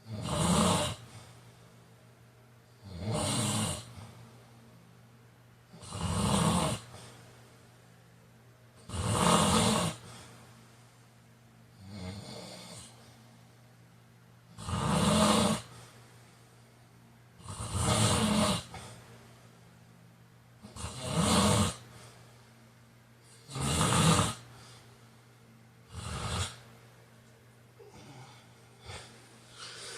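A man snoring in a steady rhythm, about one snore every three seconds; the last few snores near the end are shorter and weaker.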